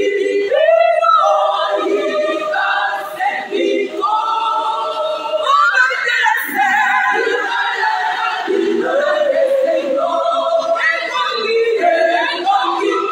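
Women's choir singing unaccompanied, several voices together, with long held notes.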